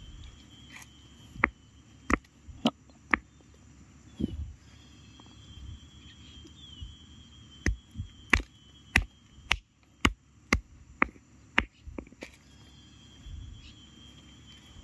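A hand-held stone pounding oil palm fruits on a flat rock: sharp knocks, a few early, then after a short pause a fast run of about two a second, crushing the fruit to pulp. An insect's steady high trill runs underneath.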